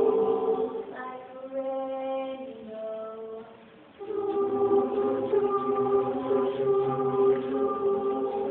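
A mixed choir of men and women singing sustained chords. About a second in the sound thins to fewer, quieter voices and fades almost away, then the full choir comes back in strongly about four seconds in.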